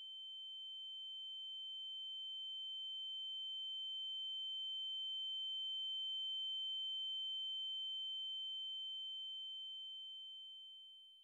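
A steady high-pitched electronic tone with fainter tones above and below it, swelling slowly to its loudest about halfway through and then fading out at the end.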